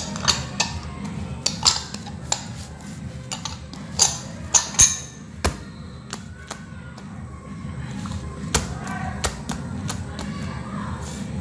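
Hands kneading and pressing bread dough in a stainless steel bowl: a run of sharp slaps and knocks of dough and bowl, thick in the first half and sparser after that.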